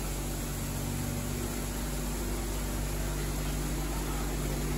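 Steady machine hum with an even hiss, unchanging throughout.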